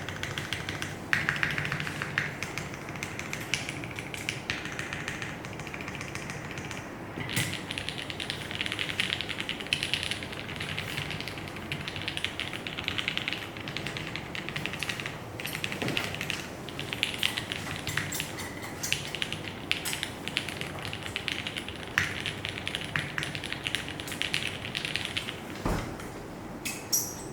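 Mechanical keyboard being typed on continuously: a FREQ1 with an aluminium plate and retooled Cherry MX Black linear switches lubed with Krytox 205g0 or Krytox-107, giving a stream of rapid key clacks with brief pauses.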